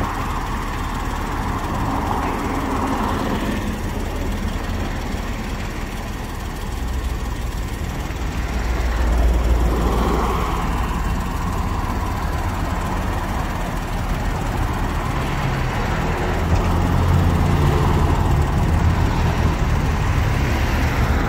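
Road traffic passing close by, one car going by about halfway through, over a steady low engine rumble that grows louder near the end.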